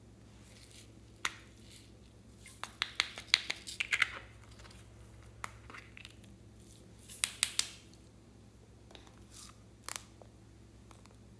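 Slime being squeezed and stretched by hand, giving sharp clicking and popping in two quick flurries, with a few scattered pops between.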